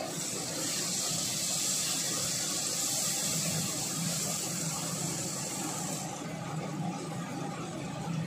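Vegetables sizzling in a hot wok as they are stirred with a wooden spatula, a bright hiss that cuts off about six seconds in, over a steady low hum.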